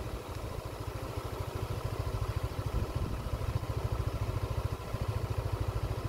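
A small engine idling steadily nearby, a low, fast, even pulsing.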